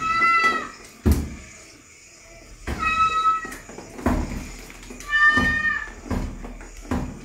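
A cat meowing three times, each meow high-pitched and about half a second long, roughly two and a half seconds apart. There is a sharp knock about a second in.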